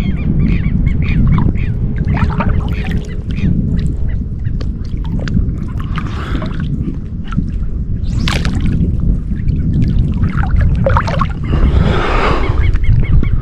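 Strong wind buffeting the microphone over lapping water, with birds calling repeatedly in the background. There is a short, louder rush of water about twelve seconds in.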